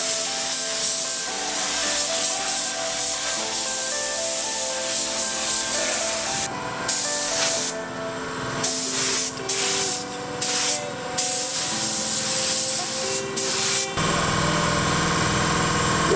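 Compressed-air paint spray gun with a gravity-feed cup hissing as it sprays base coat: steady at first, then in short bursts from about six seconds in as the trigger is pulled and released, stopping near the end.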